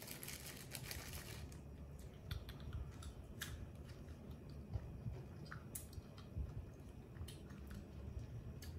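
Faint handling sounds: a plastic bag crinkling for the first second or so, then sparse small clicks and crunches.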